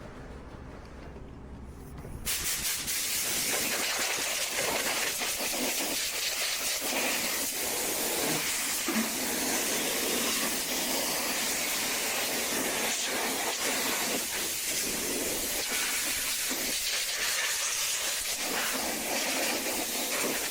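A steady hiss that starts abruptly about two seconds in and runs on evenly.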